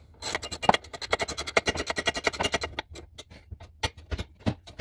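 Hand ratchet wrench clicking rapidly as it is worked on the jet pump's reverse bucket control cable fitting, then a few slower, separate clicks and knocks.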